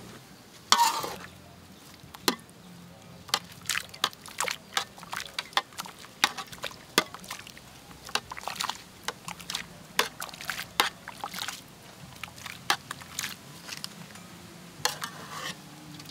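Water sloshing and splashing in a large aluminium wok as a metal ladle scoops and pours water over a snake lying in it, with short sharp clinks and splashes several times a second. The loudest single hit comes about a second in.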